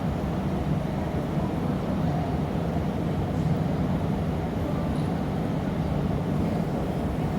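Steady low roar of a glassblowing workshop's gas furnaces and blowers, unbroken and even throughout.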